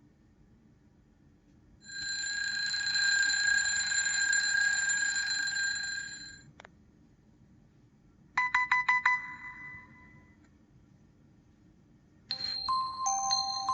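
Ringtones from a T-Mobile HD2 (HTC) phone played one after another, with short gaps between them. First comes a steady electronic ring of about four seconds, then a quick run of about six short beeps, and near the end a melodic tone begins.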